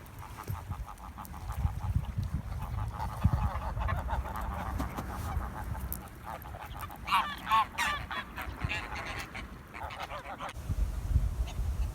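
Geese honking repeatedly, the calls loudest about seven to eight seconds in, over the low rumble of wind on the microphone.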